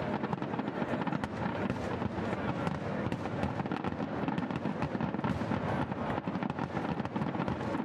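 Aerial fireworks shells bursting in a dense, unbroken barrage, with rapid crackling and no pause between reports.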